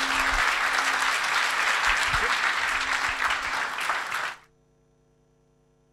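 Audience applauding after a talk, steady clapping that cuts off suddenly about four seconds in, leaving only a faint hum.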